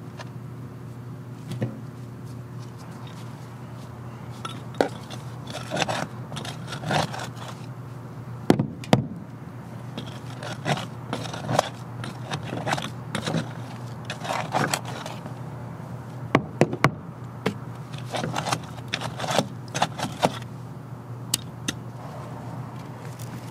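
Irregular scraping and short knocks of digging around a sprinkler head that sits too high, to lower it, over a steady low hum.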